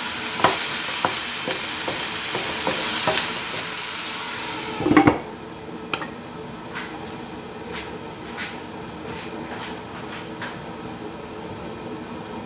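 Chicken pieces sizzling in a frying pan while a wooden spatula stirs them, with small knocks against the pan. About five seconds in a glass lid clatters down onto the pan, and the sizzle drops to a quieter, muffled hiss with scattered faint ticks.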